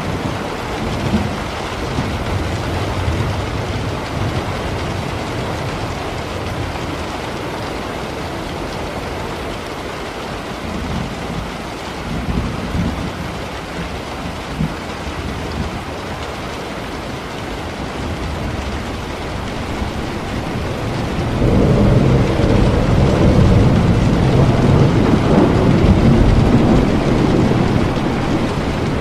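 Steady rain with rolling thunder. Low rumbles come and go, and the loudest, a long deep rumble, swells up about 21 seconds in and lasts several seconds.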